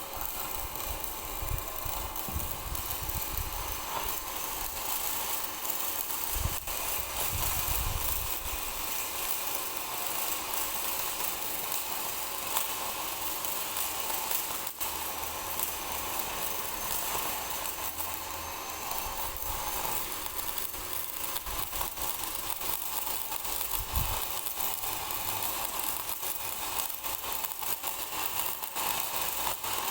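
Stick-welding arc on LB 52 low-hydrogen electrode, a steady crackling hiss as the bead is run around the steel pile ring, with a few low thumps.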